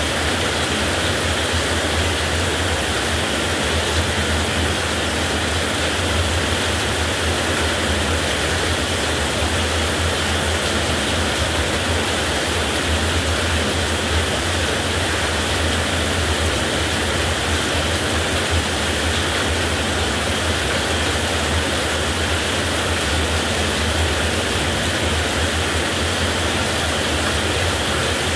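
Heavy rain falling steadily: a dense, even hiss with a constant low rumble beneath it.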